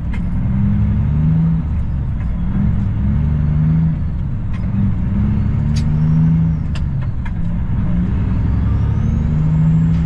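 Semi-truck diesel engine heard from inside the cab, pulling away from an intersection with an empty trailer. The engine note climbs and drops several times as the truck works up through the gears.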